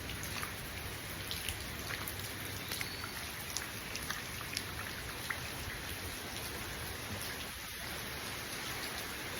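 Heavy rain pouring steadily, with scattered sharp ticks of single drops striking close by.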